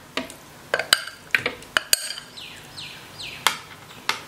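Raw boneless chicken pieces tipped from a glass bowl into a plastic food processor bowl: a series of sharp clinks and knocks as the bowl taps the processor and the pieces drop in. A short run of faint falling chirps sounds in the middle.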